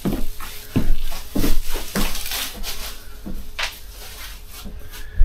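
A string of irregular knocks and clatters, as of gear being handled and set down.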